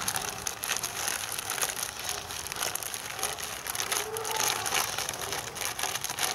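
Plastic bag crinkling and rustling steadily as hands knead batter inside it, many small crackles throughout.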